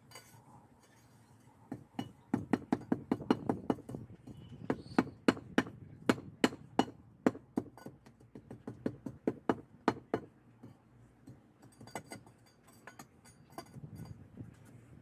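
Hand tamper pounding paver base into the corners that a plate compactor can't reach. It makes quick, repeated thuds, several a second, heaviest through the middle and lighter near the end.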